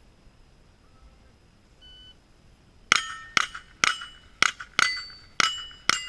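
A faint short electronic beep, like a shot timer's start signal, then seven quick .22 rimfire rifle shots about half a second apart. Each shot is followed by the clang and ring of a struck steel plate target.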